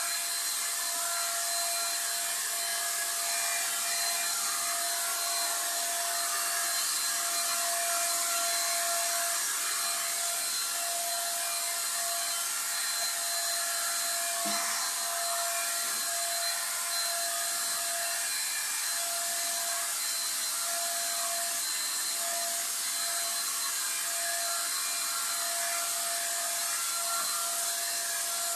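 Handheld electric paint sprayer running steadily while spraying paint: a constant hiss of air and spray with a steady motor whine.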